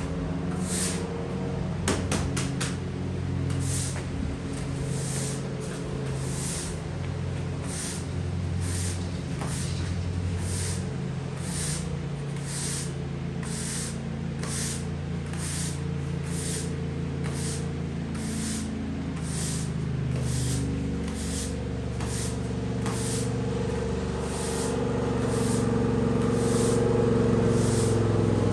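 Background music with a steady beat: a regular high tick about one and a half times a second over sustained low notes that change every second or two.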